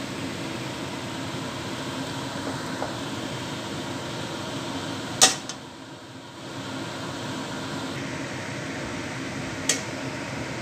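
Steady fan-like whir, with two sharp clicks of tongs knocking against the wok, one about halfway through and one near the end.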